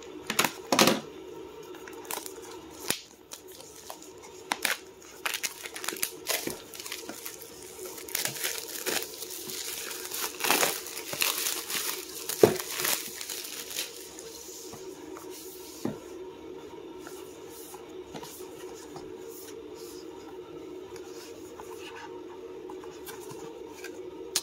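Plastic shrink wrap being torn and pulled off a cardboard box, crinkling and rustling most densely in the middle, with scattered sharp clicks and taps. The second half is quieter handling of the box.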